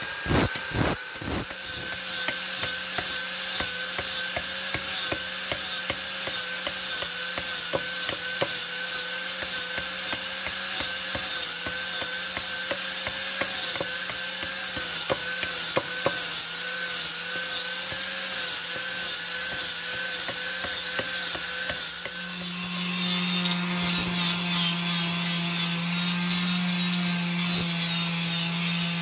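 Electric power tools working a steel blade: a steady, slightly wavering whine with faint regular ticking through most of it, then about 22 seconds in an electric palm sander running on the blade with a lower, steady hum.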